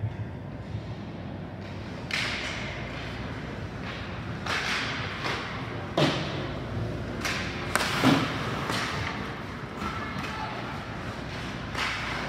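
Ice hockey play on a rink: skate blades scraping the ice and sticks striking the puck. There are about half a dozen sudden scrapes and knocks, the loudest two around six and eight seconds in.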